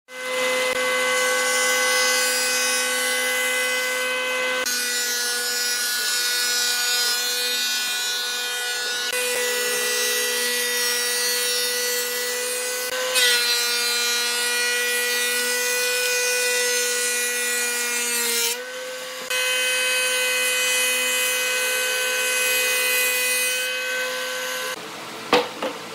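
Thickness planer running with a steady whine and hiss as its cutterhead shaves a wooden board fed through the rollers; the sound shifts abruptly several times. A few knocks near the end.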